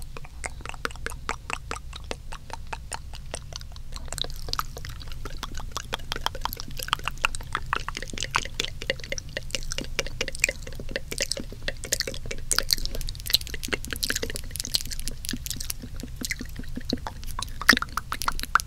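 Close-up, layered wet mouth sounds: rapid tongue clicks and lip smacks, several a second, with one louder click near the end.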